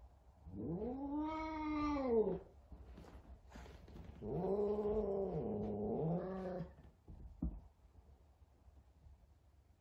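F2 Savannah cat yowling at a kitten it is frightened of: two long, drawn-out calls, the first rising then falling, the second lower and longer with a wavering pitch.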